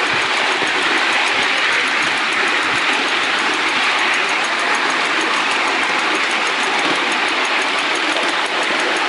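Miniature live-steam locomotive running along the track, heard from the car just behind it: a steady loud rush of running and steam noise with a fast, regular faint ticking.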